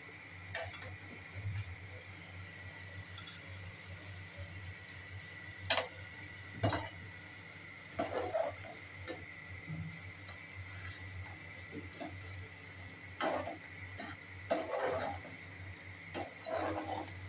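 Metal spatula stirring and scraping a thick masala sauce in a frying pan, with irregular scrapes and clacks against the pan, the sharpest about six seconds in, over a steady soft sizzle of the masala frying on the stove.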